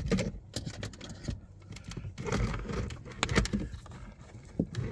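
Handling noise while someone rummages for a pointer: scattered clicks, rattles and rustles of small hard objects being picked up and moved, with a louder knock about three and a half seconds in.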